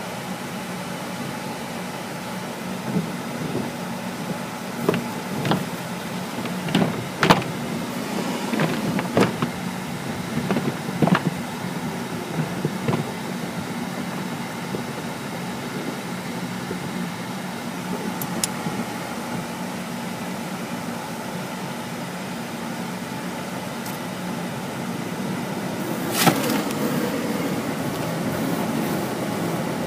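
Automatic car wash heard from inside the car: a steady machinery hum, with cloth wash strips slapping and rubbing across the windshield and body in irregular thumps during the first half. Near the end a louder rush of water starts and keeps going.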